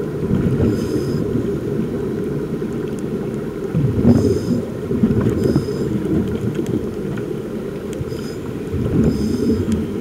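Underwater noise picked up by a submerged camera: a steady low rumble, with short high hisses a few times.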